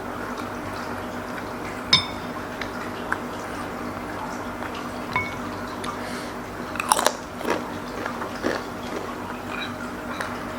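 Close-up eating sounds of spicy seblak being chewed and bitten, with a sharp ringing clink about two seconds in and a cluster of louder eating noises around seven seconds, over a steady low hum.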